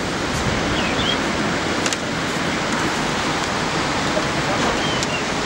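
Steady rush of ocean surf breaking on the point, mixed with wind on the microphone.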